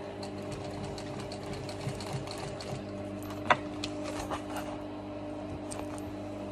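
Singer sewing machine's motor humming steadily, with scattered light clicks from the machine and the leather being handled. One sharp click a little past halfway stands out as the loudest sound.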